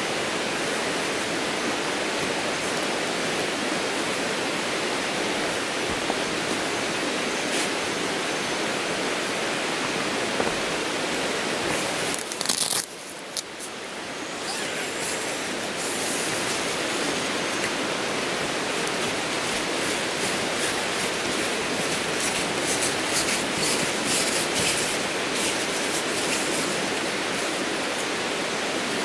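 Steady rushing of flowing water, like a nearby forest creek, that drops away for about a second halfway through. Faint light clicks and rustles sit on top of it in the second half.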